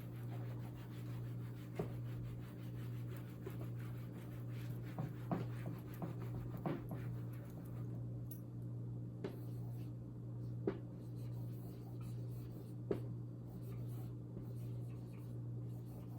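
Faint scratching of writing strokes, broken by a few short sharp taps, over a steady low hum.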